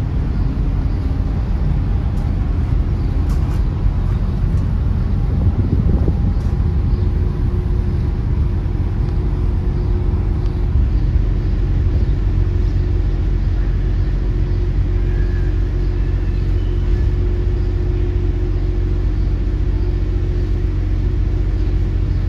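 Steady low rumble of a ferry's engines and machinery, heard on board during arrival, with a steady hum setting in about six seconds in.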